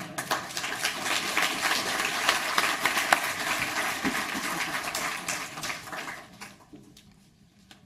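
Audience applauding, then dying away over the last couple of seconds.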